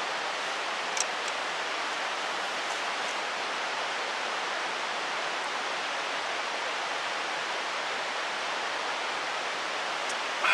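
Mountain stream water rushing steadily, with a single faint click about a second in.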